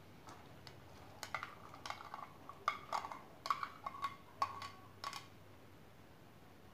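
Steel spoon clinking and scraping against the bowl and pan as sweet corn kernels are tipped into a pan of hot water: a run of light clinks, some with a brief ring, starting about a second in and stopping about five seconds in.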